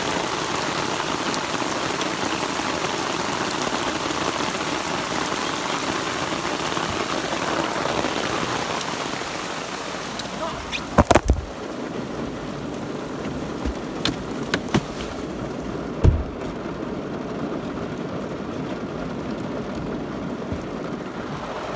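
Heavy rain pouring steadily. About halfway through there is a quick clatter of sharp clicks, and a few seconds later a single heavy thump. After the thump the rain sounds duller and quieter, heard from inside a car.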